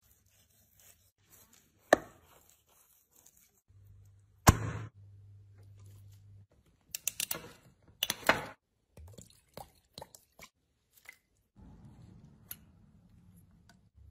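Knife cutting through a raw rack of ribs, with sharp single chops about two seconds in and again halfway through. Then comes a quick run of clicks and crackles as the metal screw cap is twisted off a glass water bottle.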